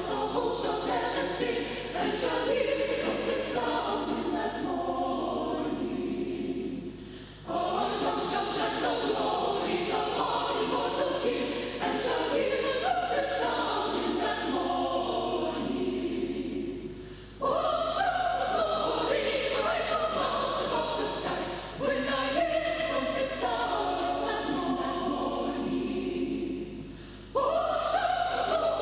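Large mixed choir of men's and women's voices singing a hymn, phrase after phrase, with brief breaks between phrases about 7, 17, 22 and 27 seconds in.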